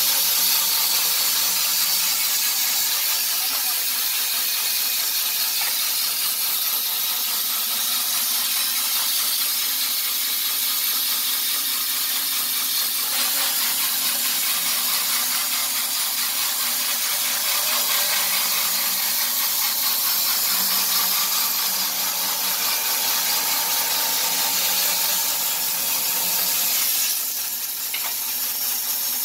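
Wood-Mizer LT15 band sawmill running, its band blade sawing lengthwise through a squared log: a steady, loud, high-pitched sawing noise over a low motor hum. The sound dips briefly near the end.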